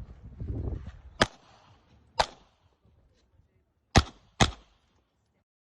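Four single handgun shots at an IPSC match, irregularly spaced, the last two about half a second apart.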